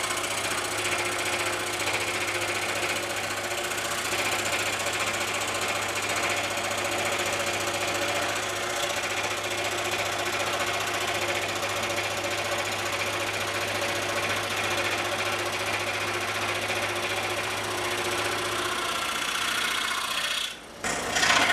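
Scroll saw cutting through the end of a square wooden post, its reciprocating blade chattering steadily, the cut played back sped up. The sound drops out briefly near the end and comes back louder.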